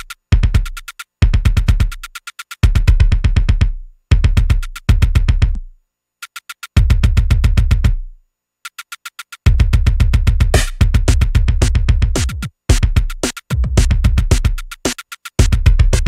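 Live drum-machine pattern with a heavy low kick and rapid-fire hits, chopped so that it cuts out and restarts abruptly several times, with a silent gap of over a second about eight seconds in.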